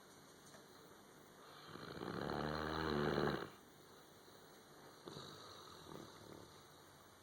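A sleeping dog snoring: one long, loud snore that swells and cuts off about three and a half seconds in, followed by a softer snoring breath a little later.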